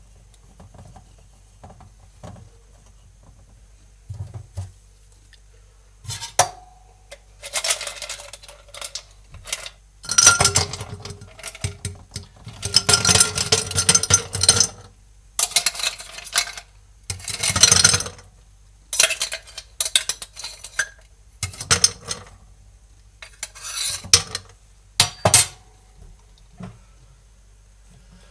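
Ice cubes put into a tall glass, clinking and rattling against the glass and each other in a run of separate clatters and longer rattles that start about six seconds in.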